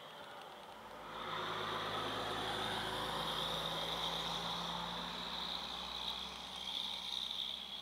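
A steady engine hum, like a vehicle running near by, that grows louder about a second in and then holds.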